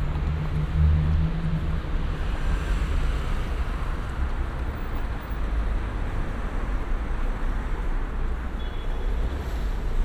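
City road traffic: a passing vehicle's low engine hum fades away in the first second or two, leaving a steady wash of car and tyre noise.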